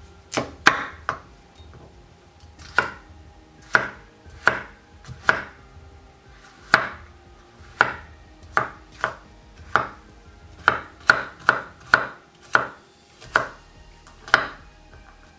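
Kitchen knife chopping broccoli stem on a wooden cutting board: about twenty sharp knocks at an uneven pace, roughly one or two a second.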